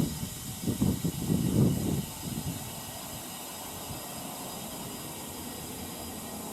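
Compressed air from a workshop airline hissing steadily as a plugged car tyre is pumped up. About the first two seconds carry an uneven low rumbling before the hiss settles to an even sound.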